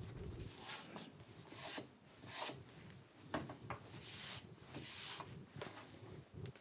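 Wooden boards sliding and rubbing against each other and the bench top as they are pushed into position by hand: several soft swishes with a few light knocks.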